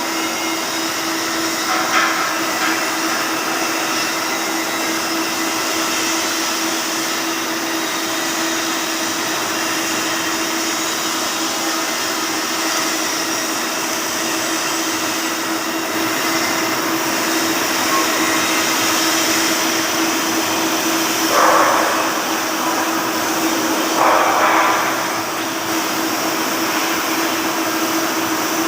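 Flux-cored arc welding with 1.2 mm wire: the arc runs with a steady, even noise and a constant low hum underneath. Two brief louder surges come near the end.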